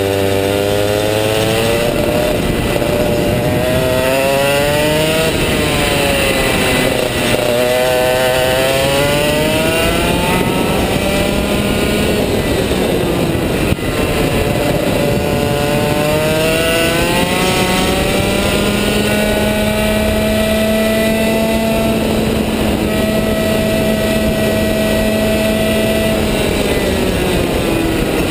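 Rotax Max 125 cc two-stroke kart engine at racing speed. Its pitch falls as the kart slows for each corner and climbs again along the straights, holding high and steady for several seconds in the second half before dropping off near the end.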